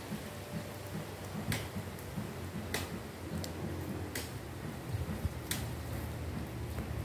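A small outdoor fire of dry grass and leaves crackling, with sharp separate pops about every second or so over a steady low rumble.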